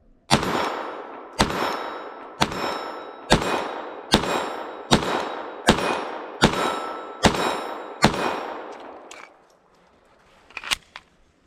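Glock 44 .22 LR pistol firing CCI Mini-Mag rounds: ten shots in steady succession, one about every second, each fading out before the next. The shooting stops at a failure to feed, followed by a few light clicks of the pistol being handled.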